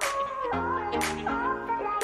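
Background music: a melody over a steady beat, with a sharp percussive hit about once a second.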